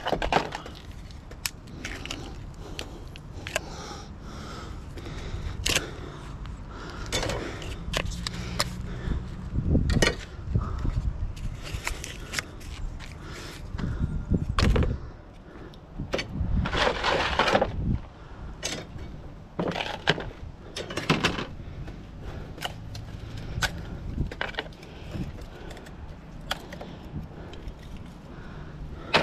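Copper winding strips and scrap metal pieces from a transformer being pulled apart by hand and dropped onto a plastic truck-bed liner: irregular clinks, knocks and scrapes, with a few denser flurries of rattling.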